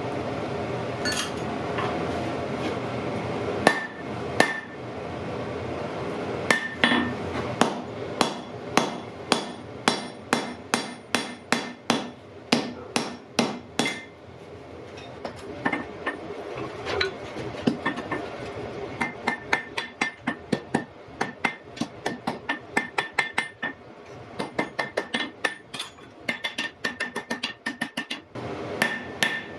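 Blacksmith's hammer striking iron on an anvil in a steady rhythm of about two to three blows a second, many blows with a bright ring. The hammering pauses briefly about halfway. It follows a few seconds of steady rushing noise with only scattered blows at the start.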